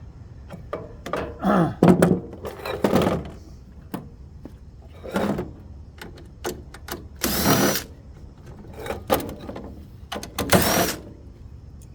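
Clanks, knocks and short metallic scraping bursts of sheet-metal heater parts being handled and pulled apart by hand. The knocks are scattered throughout, and about five louder scrapes stand out, two of them with a brief ringing squeal.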